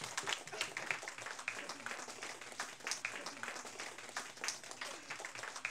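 Clapping from a room of children: dense, irregular hand claps.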